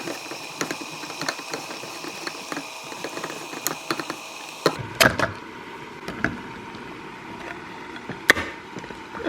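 A utensil clicking and scraping lightly against the pot as ground beef is worked in an Instant Pot, with sharper knocks about five seconds in and another near the end. A faint steady whine stops about halfway.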